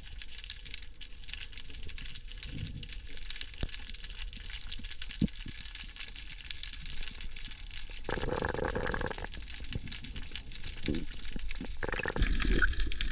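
Underwater ambience heard through a dive camera's housing: a steady hiss scattered with small clicks and crackles, a brief louder rush of water noise about eight seconds in, and a heavier low rumble near the end.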